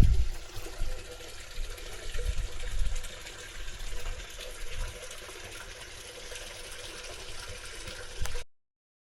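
Steady rush of running water, with low wind rumble on the microphone in the first few seconds; it cuts off abruptly near the end.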